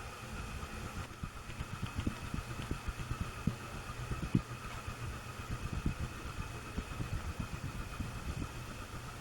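1989 SMC Laguna ceiling fan motor running on low speed with a very audible hum and a steady higher whine, with irregular low thumps throughout.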